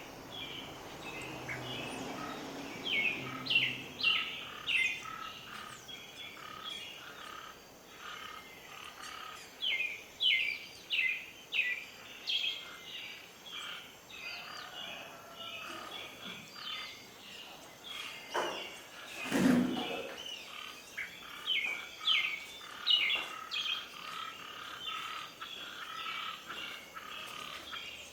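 Birds chirping: many short, quick, high calls in rapid runs over a steady background hiss. A single louder low thump sounds about two-thirds of the way through.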